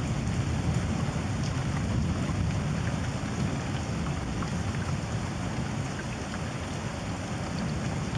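Steady rain in a thunderstorm, with single drops ticking here and there over a dense low rumble.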